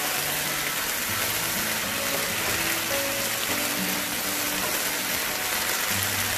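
Marinated chicken pieces sizzling steadily in oil in a nonstick pan over a high flame as they are stir-fried, with soft background music of held notes changing in pitch underneath.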